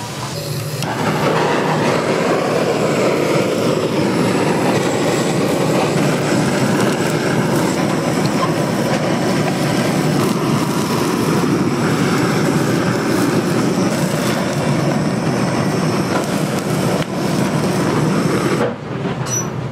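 Handheld kitchen blowtorch lit about a second in and running steadily as its flame sears braised offal on a wire rack. It shuts off near the end.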